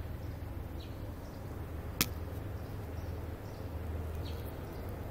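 Steady low rumble of distant airport and road traffic, with a few faint high chirps and a single sharp click about two seconds in.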